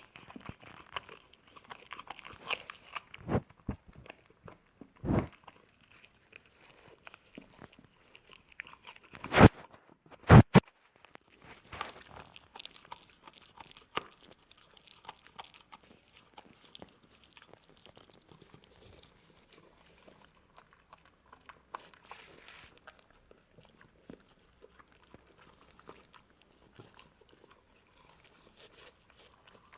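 Beagle puppy chewing and gnawing a big treat: irregular crunching and clicking of teeth, with two loud knocks about a third of the way through, then quieter gnawing.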